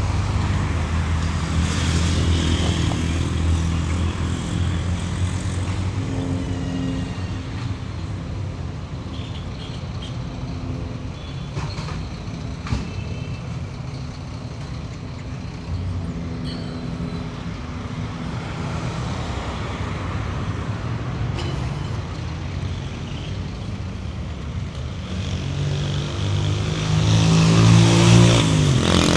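Urban street traffic: vehicle engines running steadily in the background. Near the end a louder vehicle passes close, its engine pitch falling as it goes by.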